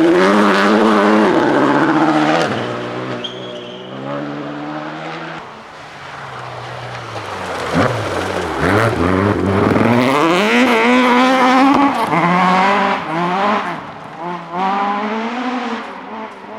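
Rally car engine at high revs, falling in pitch and fading as it lifts off, then climbing again in repeated rising steps through the gears as it accelerates hard.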